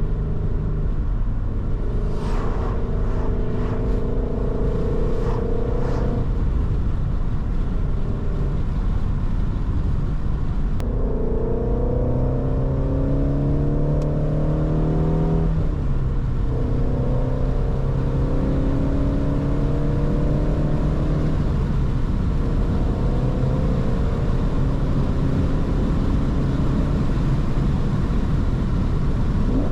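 2019 Shelby GT350's 5.2-litre flat-plane-crank V8 under way, the revs climbing in pulls and dropping at gear changes, then settling to a steady cruise. A few sharp clicks sound in the first few seconds.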